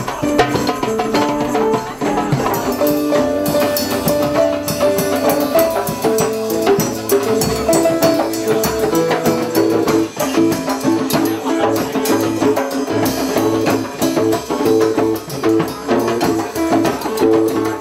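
Drum circle: several hand drums played together in a fast, steady rhythm with rattling percussion, over a repeating melodic line of short pitched notes.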